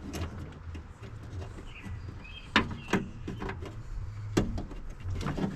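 A few sharp plastic clicks and knocks from fitting wiring-harness clips and tabs into a car door, over a low steady hum.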